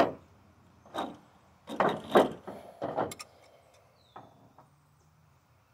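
A sharp click, then scattered knocks and clatter of hand tools and metal chandelier parts being handled: one about a second in, a cluster around two seconds, another around three.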